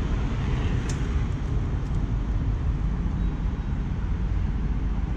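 Steady low rumbling outdoor noise, with no engine tone in it, and a single sharp click about a second in.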